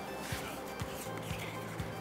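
Quiet background music, steady and sustained.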